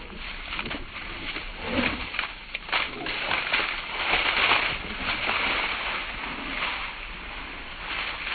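Dry fallen leaves rustling and crunching as two dogs run and wrestle through them, a busy crackle that swells in the middle as one dog runs close by.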